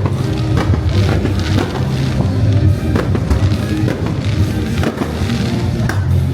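Fireworks going off in a few sharp bangs over loud show music with a steady bass beat.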